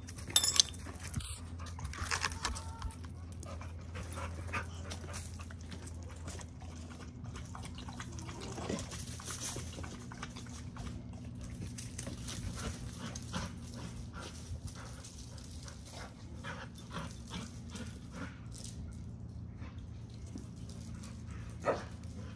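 Dogs whimpering and giving a few short cries, with scattered light clicks and rustles over a steady low hum.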